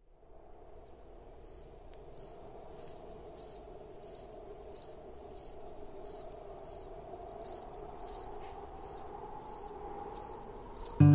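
Crickets chirping: short high chirps at one pitch, about twice a second, over a faint steady low hum, fading in from silence. An acoustic guitar comes in loudly right at the end.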